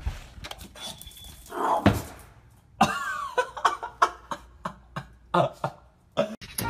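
A pug snorting and snuffling in short bursts, with scattered sharp clicks and knocks.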